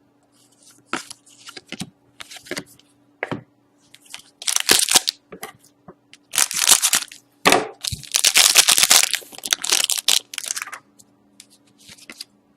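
Crinkling and crackling of plastic card packaging as hockey cards are handled, in irregular bursts that grow denser and louder about halfway through.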